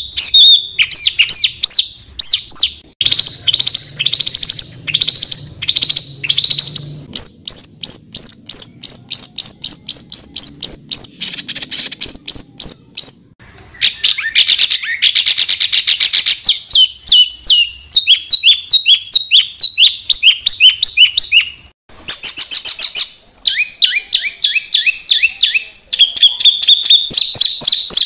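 Songbirds singing 'tembakan rapat': loud trains of short, sharp, rapidly repeated notes, several a second. The phrase type and pitch switch every few seconds, with brief breaks about halfway and about three-quarters through.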